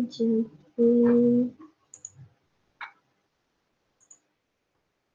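A woman's voice humming a few short steady notes, then a few sharp computer mouse clicks.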